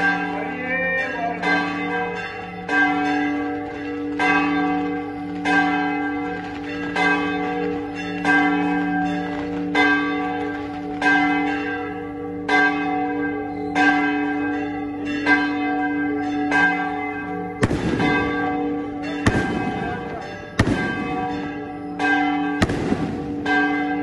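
A church bell struck steadily, about three strikes every two seconds, each stroke ringing on into the next. Near the end, several firecracker bangs a second or two apart break over the ringing.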